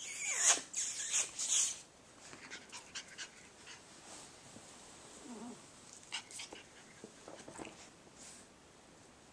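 Cavachon puppies play-fighting, with a burst of high yips that slide down in pitch in the first two seconds, then softer, scattered yips and scuffles.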